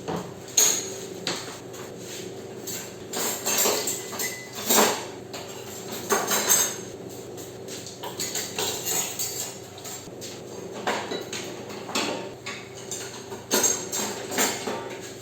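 Metal cutlery and knives clinking and clattering as they are picked up and set down, in irregular clinks throughout, several louder clatters among them.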